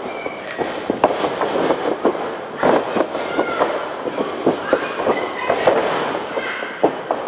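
Noisy wrestling-arena crowd with shouts and whistles, broken by frequent sharp cracks and slaps from the ring.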